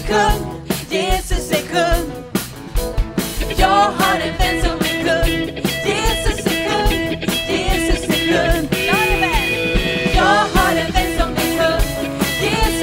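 Live band music: singers leading a worship song in Swedish over electric guitar and keyboard, with a steady beat.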